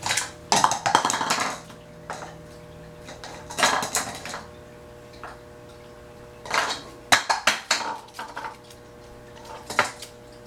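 An African grey parrot knocking a cup about on a wooden floor: five or six bursts of clattering knocks, a second or two apart.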